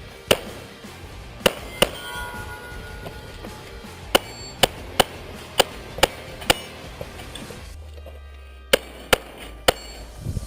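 A string of about a dozen pistol shots fired in quick groups of two to four, with steel targets clanging and ringing after some hits.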